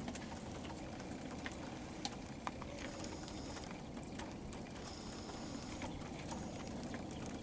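Quiet outdoor background while the shooters hold still: a steady low rumble with a few faint scattered ticks.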